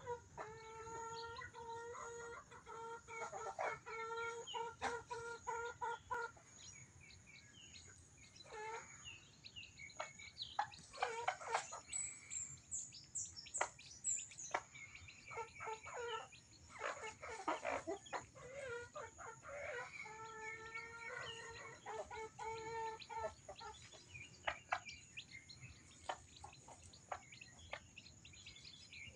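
Native chickens clucking and calling, with long, drawn-out calls near the start and again about two-thirds through, and high chirps among them that fit a brood of newly hatched chicks. A thin, steady high tone runs underneath.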